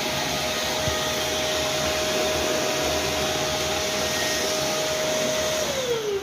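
Vacuum cleaner running with a steady, noisy whine, then switched off near the end, its motor pitch falling as it winds down.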